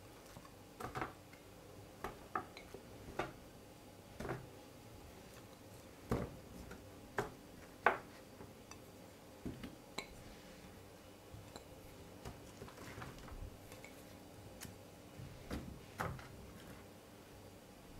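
Halved raw potatoes set down one at a time on a metal baking tray: about a dozen soft, irregular knocks and taps, with a quieter stretch in the second half.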